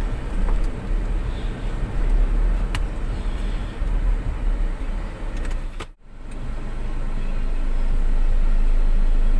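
A car running, a steady low rumble of engine and road noise, broken by a sudden cut about six seconds in, after which an even rumble builds back up.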